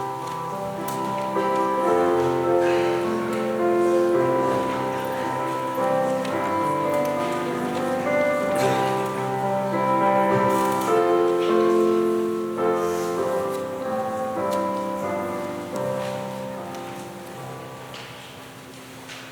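Instrumental music: slow, sustained chords played on a keyboard instrument, fading down near the end.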